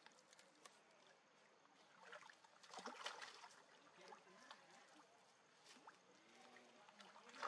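Faint splashing and trickling of water, a little louder about two to three and a half seconds in.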